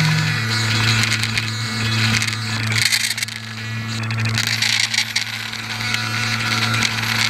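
RC airboat's electric motor and pusher propeller running with a steady low hum, dropping a little in pitch just after the start and then holding.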